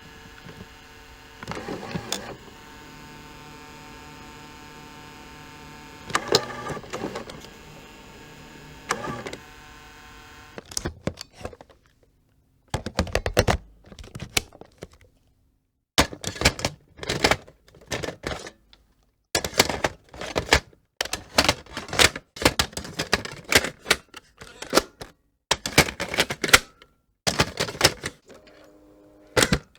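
VHS cassette mechanism sounds. First a steady motor hum with several mechanical clunks, then a long run of sharp plastic clicks and clatters, one after another with short pauses.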